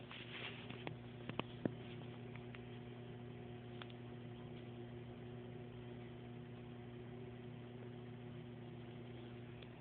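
Faint, steady hum of a small saltwater aquarium's running equipment, with a few sharp clicks and knocks in the first two seconds as the camera is handled against the tank.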